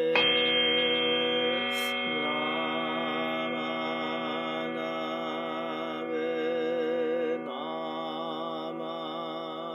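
A Buddhist bowl bell struck once at the close of a sutra recitation, ringing on for several seconds with many steady overtones that waver as they slowly fade.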